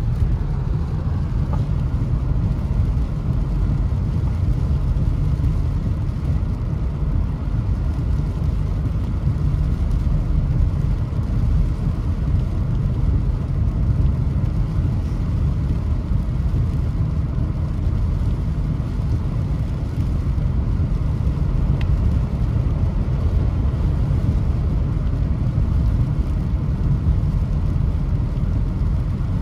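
Car driving on a rain-wet road, heard from inside the cabin: a steady low rumble of engine and tyres.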